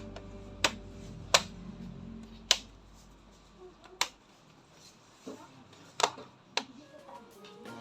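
Several sharp clicks and knocks, about six spread over several seconds, the loudest near the start, typical of hard plastic and small parts being handled. Background music fades out over the first couple of seconds.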